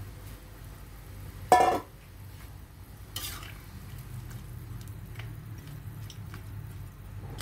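Slotted metal spatula stirring sliced luffa in simmering water in an aluminium wok, with light scrapes and ticks over a steady low hum. There is one loud ringing metal clang about a second and a half in, and a short scrape about three seconds in.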